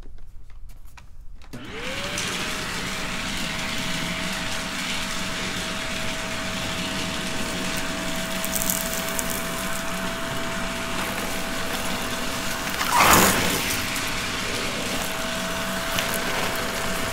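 Vacuum cleaner switched on after a few clicks: its motor spins up within a moment to a steady whine over a rushing airflow noise, then runs steadily. About thirteen seconds in there is a short, loud crackling burst.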